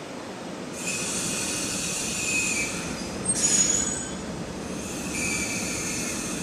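EF65 electric locomotive and Shiki 1000 heavy-cargo wagon rolling slowly over curved track. High, steady wheel squeal sets in about a second in, over a low rumble. A brief louder, harsher burst comes about halfway, and the squeal returns near the end.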